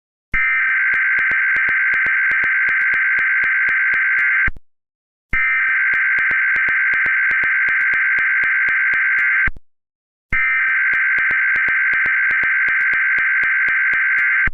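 Emergency Alert System SAME header: three bursts of digital data tones, each about four seconds long with about a second's gap between them, signalling the start of a Required Weekly Test.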